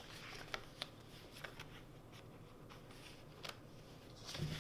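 Quiet paper handling: a few faint taps and light rustles as planner pages are touched and turned, with a soft rustle near the end.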